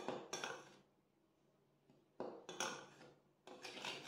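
Metal spoon stirring dry flour and cocoa in a glass bowl, scraping and clinking against the glass in three short bursts of strokes.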